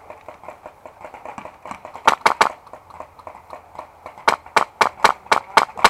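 Airsoft gun firing: three quick shots about two seconds in, then a string of about seven shots at roughly four a second near the end, each a sharp crack.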